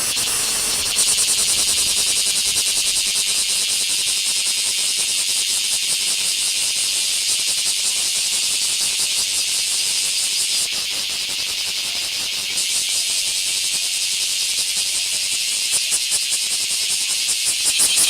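A chorus of bear cicadas (kumazemi) calling: a dense, high-pitched buzz that pulses rapidly near the start and again near the end, and runs steadier in between.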